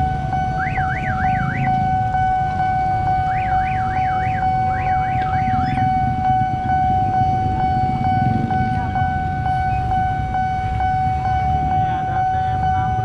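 Railway level-crossing warning signal sounding, a steady electronic tone with faint regular ticks about twice a second, while the barrier comes down, over the rumble of motorbike and minibus engines. Three short bursts of a warbling siren sound in the first six seconds.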